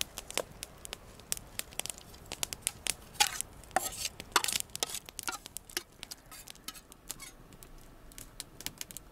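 A metal fork scraping fried onions out of a metal camp pan, a few longer scrapes about three to five seconds in, over scattered sharp crackling clicks from the wood campfire.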